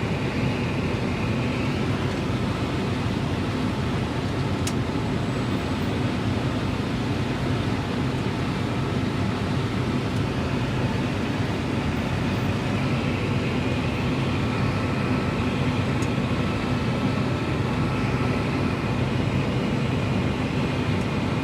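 Farm tractor engine running steadily while pulling a grain cart, a constant low drone with a faint high whine above it.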